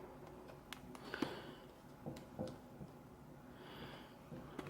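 Faint clicks and taps of hands working at a boxed trading-card starter deck while trying to get it open, with a soft breath or sniff near the end.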